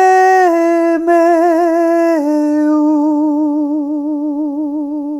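A solo voice chanting a mantra unaccompanied, holding one long sung vowel. It steps down in pitch about half a second in and again about two seconds in, then holds the lower note with a slow vibrato.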